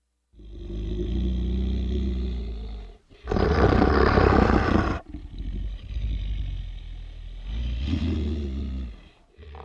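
Deep, growling roar from a horror sound-effects record, in three swells. The loudest and harshest comes about three seconds in.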